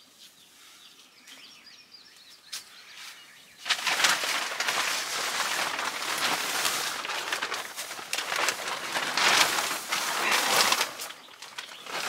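A large carport tarp being picked up, unfolded and shaken, giving a loud crinkling, flapping rustle that starts about four seconds in and eases off near the end.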